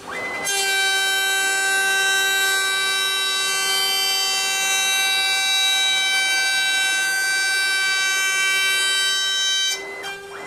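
CNC machine's router spindle spinning up about half a second in, then running at a steady high-pitched whine over a hiss as it makes a jointing pass along a board edge. Near the end the whine drops out briefly and picks up again.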